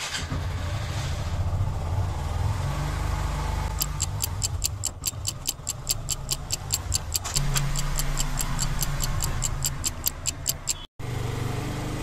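Motorcycle engine running steadily. From about four seconds in, a fast clock-ticking sound effect plays over it, about four or five ticks a second. Near the end the sound cuts out for a moment.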